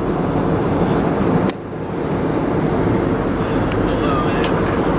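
Steady cabin noise inside an Airbus A320-232 airliner in flight, a dense low rumble of engines and airflow. It drops briefly with a click about a second and a half in, then carries on, with a few faint clicks near the end.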